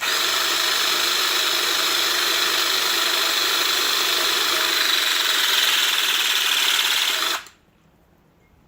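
Zupper EZ400 18-volt cordless hydraulic cable lug crimper running its motor and pump through a crimp cycle: a steady whine for about seven seconds that cuts off suddenly as the crimp ends.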